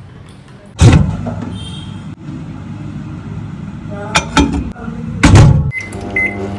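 Two loud knocks, about a second in and again after five seconds, then three short electronic beeps near the end, like a microwave oven's keypad being pressed.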